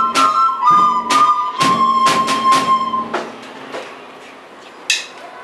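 A group of soprano recorders playing a melody together over regular percussion strikes, ending on a long held note that stops about three seconds in. A single short, sharp sound comes near the end.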